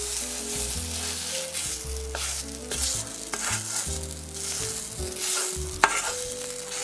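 Spatula scraping thick, dry chana dal dhoka mixture out of a nonstick kadai onto a plate, with a few sharp scrapes and knocks, the loudest about six seconds in. A steady low hum that changes pitch every second or so runs underneath.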